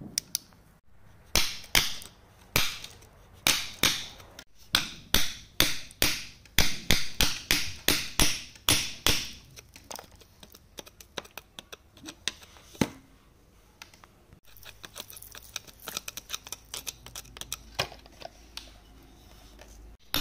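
Steel chisel chipping into gravelly rock to free a buried agate nodule. A run of sharp knocks about two a second fills the first half, then a few more spaced strikes, then quicker, lighter clicking and scraping of loose gravel near the end.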